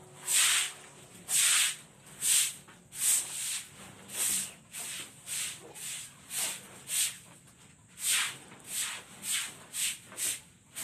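Repeated scrubbing strokes on a wet concrete pen floor, a rough scrape about once or twice a second that comes quicker near the end.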